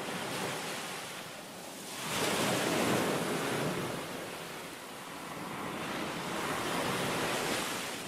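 Ocean surf: waves breaking and washing in, swelling about two seconds in and again near the end.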